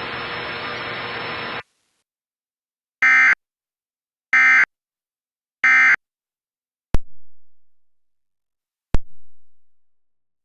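Emergency Alert System end-of-message code: three short, identical bursts of digital data tones about 1.3 seconds apart, closing out the national test broadcast. Before them a steady hiss cuts off about a second and a half in; after them come two sharp clicks, each with a brief fading ring, two seconds apart.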